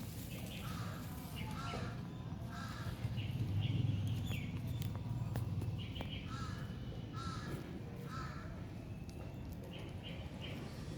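A bird calling over and over in short calls that come in runs of three or four, over a low steady rumble that swells briefly a few seconds in.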